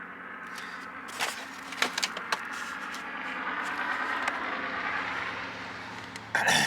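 A vehicle passing by, its steady hum swelling and then fading. Over it come a few sharp clicks and knocks from about a second in, and a louder knock near the end.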